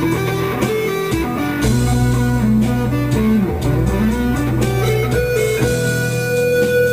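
Instrumental music led by guitar, a melody that slides and bends in pitch over a steady bass line.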